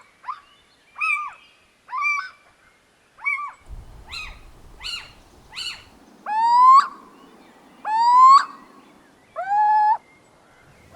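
Little owl calling: a run of short, arched, mewing calls about one every 0.7 s, then three longer, louder calls that rise in pitch like a cat's meow, about 6, 8 and 9.5 seconds in.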